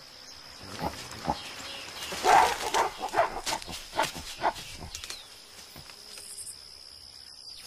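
Mountain gorillas calling: a quick run of short, sharp barks and screams, densest from about two to five seconds in, during a dominance interaction within the group.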